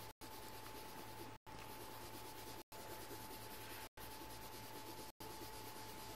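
Faint rubbing on paper over a steady low hum and a thin steady tone; the sound cuts out completely for an instant about every second and a quarter.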